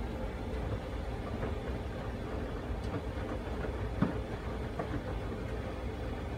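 Miele laundry machine running: a steady low rumble with a faint hum and scattered light knocks, and one sharper knock about four seconds in.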